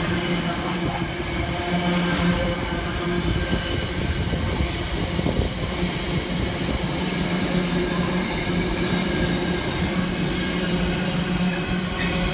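Container freight train wagons rolling past on the rails: a continuous, even rumble and clatter of wheels with steady tones running through it.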